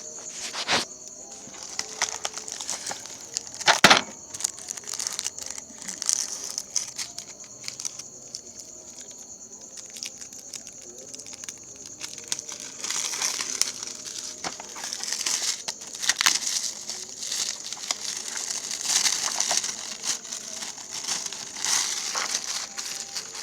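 Packaging being handled: plastic and paper crinkling and rustling, with two sharp knocks in the first few seconds and denser crinkling over the second half.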